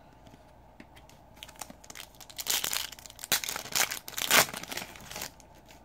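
A Panini Donruss Optic basketball hobby pack's foil wrapper crinkling and tearing open by hand. The loud crinkling runs from about two seconds in to near the end and is strongest just before it stops.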